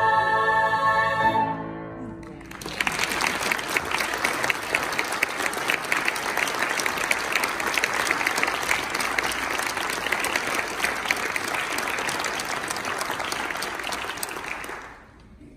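A girls' choir holds a final chord that dies away about two seconds in. The audience then applauds steadily, and the applause fades out just before the end.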